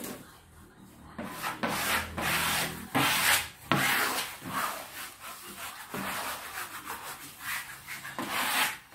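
A wallpaper smoothing brush swept over freshly hung wallpaper in repeated, irregular strokes, pressing it flat against the wall. The strokes start about a second in.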